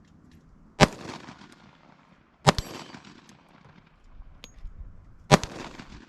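Three single 10mm pistol shots from a Sig Sauer P320 X-TEN, fired one at a time: about a second in, at about two and a half seconds, and again near the end. Each shot has a short fading echo.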